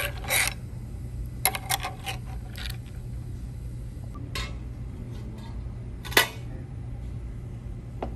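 Dishes and utensils clinking and clicking at a dining table: a few short, sharp clicks, the loudest about six seconds in, over a steady low hum.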